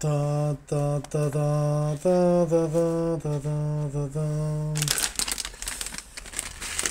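A man humming a slow, solemn chant-like tune in held notes, several short phrases in a row, which stops about five seconds in. A crinkling rustle follows near the end.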